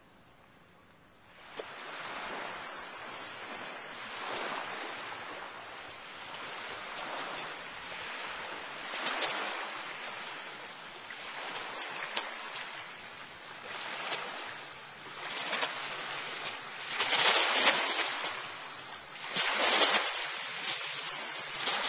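Water washing and splashing in irregular swells every couple of seconds, starting about a second and a half in and growing louder toward the end.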